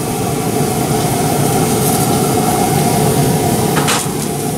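Steady hiss and hum from a pellet grill running hot at about 500°F: the ribeye sizzling on the open grate over the grill's running fan, with a faint even drone underneath.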